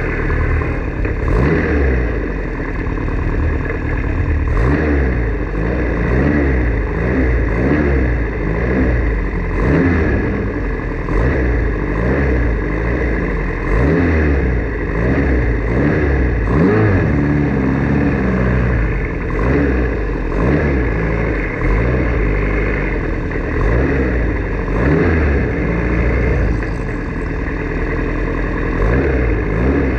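Formula Ford single-seater race car engine revving hard, its pitch climbing and falling back again and again as it runs through the gears, over a constant rush of noise.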